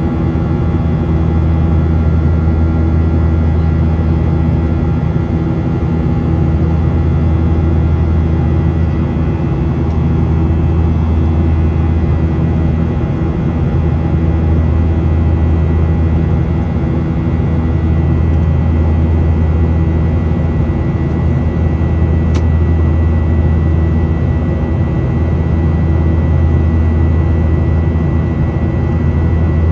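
Boeing 737-900ER's CFM56-7B jet engines heard inside the passenger cabin in flight: a loud, steady low drone with a few steady tones above it. A brief click about two-thirds of the way in.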